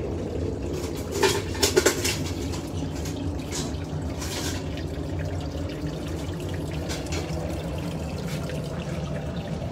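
Portable mini glass furnace running with a steady rushing hum. A few sharp clinks about one to two seconds in.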